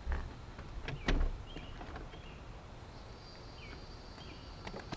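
Two dull knocks and a few sharp clicks as parts of a pickup's door lock switch assembly are handled and fitted, with faint chirps and a faint high steady tone behind.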